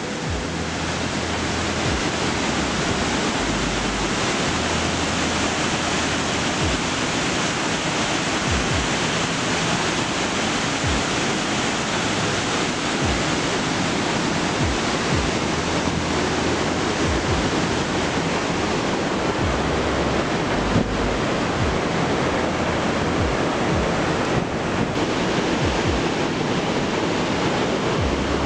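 Augrabies Falls on the Orange River: heavy white water thundering over the falls and churning through the gorge, a steady loud rush of water.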